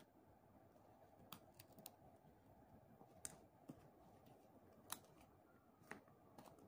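Faint, scattered clicks of small painted wooden clothespins being unclipped and clipped back onto a string, about seven in all, the loudest about five seconds in.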